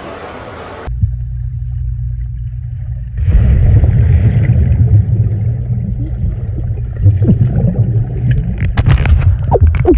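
Swimming-pool sound heard by a submerged camera: a muffled low rumble that grows louder about three seconds in as a person plunges in amid a mass of bubbles, with bubbly clicks near the end. A brief steady hiss at the very start cuts off abruptly.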